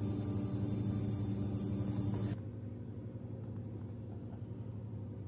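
Electric motor drive of a 3D-printed telescope mount turning its printed herringbone gears: a steady low mechanical hum with several steady tones, which drops in level about two seconds in.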